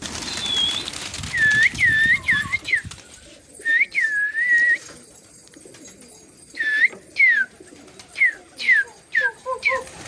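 A person whistling at pigeons, short swooping notes over and over in quick groups, the sound a pigeon keeper makes to send his flock up. A burst of rustling comes at the very start.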